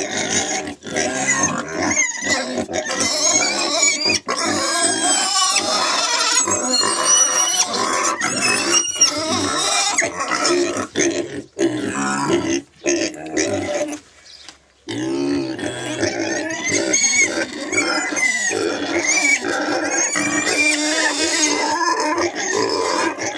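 Several pigs squealing over one another in high, whistling squeals that glide up and down in pitch. The squealing breaks off briefly about two thirds of the way through, then resumes.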